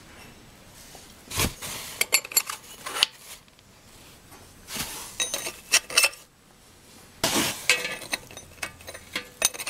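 Metal carburettor intake trumpets being handled and pushed into the air box: a scatter of sharp clinks and rattles in several bursts, with a longer scrape about seven seconds in.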